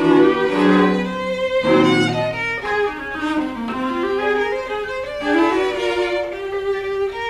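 String trio of violin, viola and cello playing a slow passage of held, overlapping bowed notes. A low cello note enters about two seconds in.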